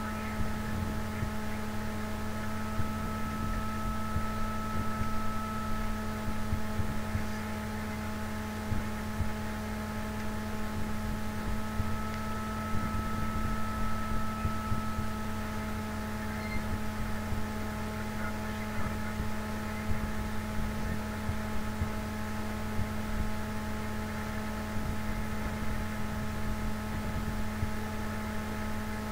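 Steady cabin noise inside a Japanese maglev train running at high speed: a low rumble with irregular bumps under a steady hum made of several fixed tones.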